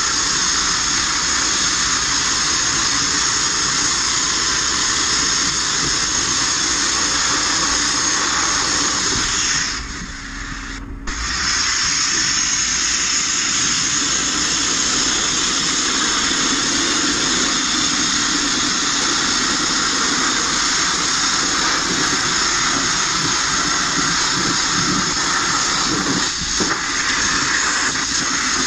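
Abrasive media blast nozzle running with a loud, steady hiss as the grit strips the bare steel inside a Mk1 Ford Transit van. The blast cuts out for about a second and a half roughly ten seconds in, then starts again.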